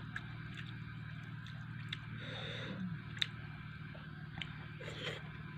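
Eating by hand from a metal plate: fingers mixing rice and fried fish, with chewing and a few sharp clicks, over a steady low hum.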